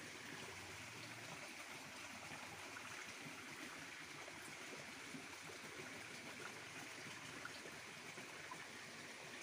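Water flowing in a small ditch: a faint, steady trickle.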